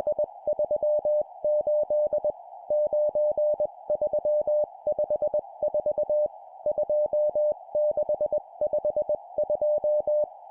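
Morse code (CW) at 20 words per minute: a single mid-pitched beep keyed in dots and dashes, sending four-digit groups of numbers separated by short pauses, over a steady band of hiss.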